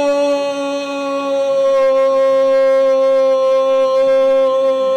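A football commentator's long, held shout of "gol" on one unbroken, nearly level note, celebrating a goal that has just been scored.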